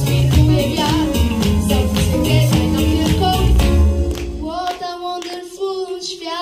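Live jazz band playing, with drums, cymbals and a heavy bass line. About four seconds in, the drums and bass drop out and a lone lead instrument holds a long note unaccompanied.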